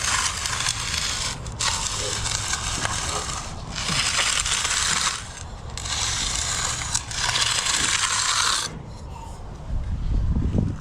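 A long-handled finishing tool is drawn over the surface of fresh concrete in about four long, hissing scraping strokes with short pauses between them. A low rumble comes in near the end.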